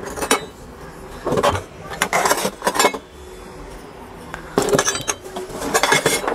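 Miniature iron pots and pans clanking and clinking against one another as they are lifted out of a cardboard box, in a few bursts of clatter.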